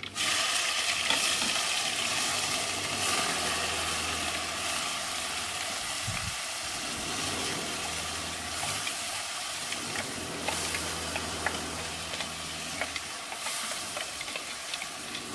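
Onion, garlic, ginger and green-chilli paste sizzling in hot mustard oil in a karahi, stirred with a wooden spatula that makes small scrapes and clicks. The sizzle comes in loud at the start and eases slowly as the paste fries.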